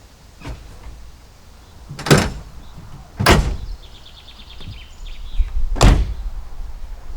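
Three heavy knocks or bangs, spaced about a second and two and a half seconds apart, with a short run of rapid high squeaks between the second and third and a low rumble underneath toward the end.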